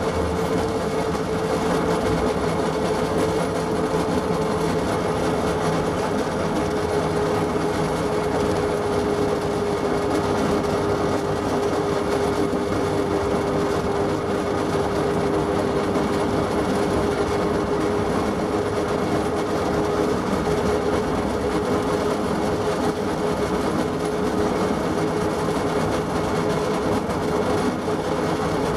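Train ride on a Plymouth switcher and caboose moving slowly along the track: a steady running noise with a held whine that drifts slightly in pitch, and wheel and rail noise beneath it.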